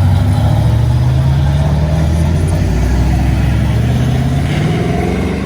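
A car engine pulling away under acceleration, its pitch climbing, dropping back, then climbing again as the sound slowly fades.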